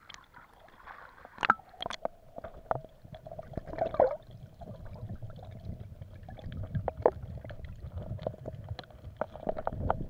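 Sea water gurgling and sloshing around a camera that dips from the surface to underwater, with a low rumble and scattered sharp clicks and knocks.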